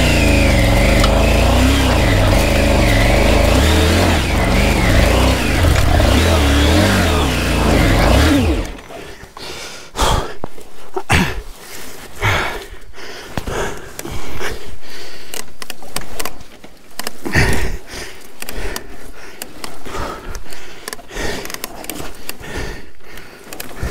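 Triumph Tiger 900 GT Pro's three-cylinder engine running, its revs rising and falling, then cutting out suddenly about eight and a half seconds in. After that, scattered light knocks and rustles.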